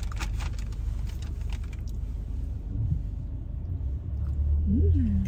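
Steady low rumble of a car interior, with light clicks and rustling in the first two seconds and a short hummed voice, rising then falling, near the end.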